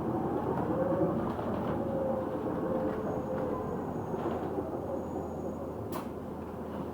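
A bus in motion, heard from inside the cabin: a whining drivetrain tone rises in pitch during the first second and then holds, over road rumble and rattles. A faint high whistle runs for a few seconds midway, and a single sharp click comes about six seconds in.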